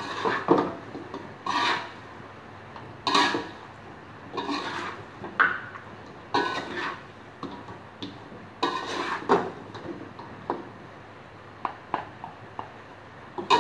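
Metal spatula scraping and knocking against a wok as chicken is stir-fried, in irregular strokes roughly once a second.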